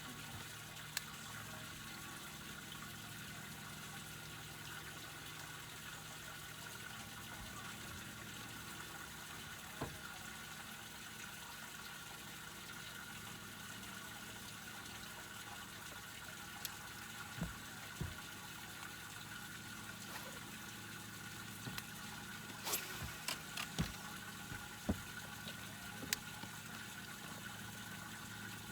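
Faint fishing-boat ambience on the water: a steady low hum with water wash, and scattered light clicks and knocks, more of them in the last third.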